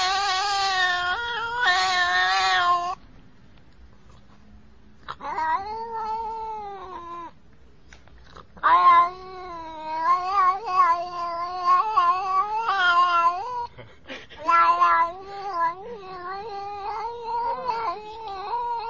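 Angry domestic cat yowling in long, drawn-out threatening calls with a wavering pitch, four in a row with short pauses between them.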